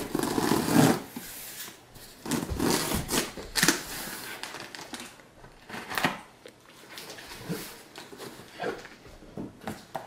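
Packing tape on a cardboard box being slit with scissors, then the cardboard flaps pulled and pried open: a run of scraping, ripping and crackling rasps, loudest in the first second, then scattered short scrapes.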